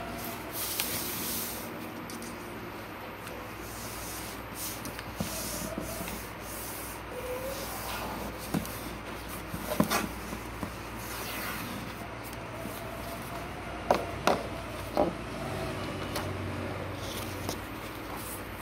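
A sheet of paper being folded by hand, fingers rubbing and pressing along the creases, with a few short sharp clicks as the paper is handled.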